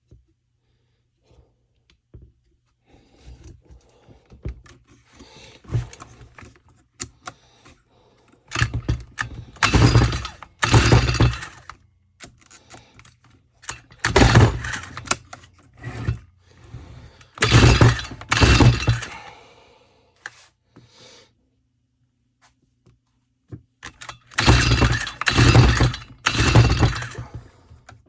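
Stihl FS 45 trimmer's recoil starter being pulled again and again, in loud rasping strokes of a second or two, some in pairs, with the engine not firing: it is flooded with fuel.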